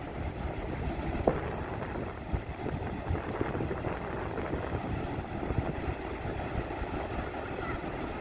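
Ocean surf breaking and washing on a sandy beach: a steady rushing wash, with wind buffeting the microphone. A brief knock sounds about a second in.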